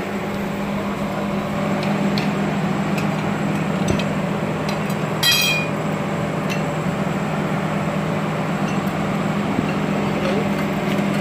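Metal parts of a backhoe loader's axle brake assembly clanking as it is pulled apart by hand, with one sharp ringing clink about five seconds in, over a steady low machine hum.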